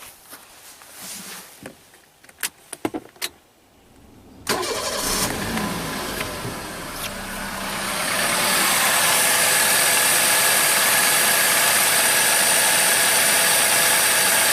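A few sharp clicks, then about four and a half seconds in the Toyota Platz's engine is started and settles into a steady idle that grows louder about eight seconds in. This is a test start after fitting a new alternator drive belt.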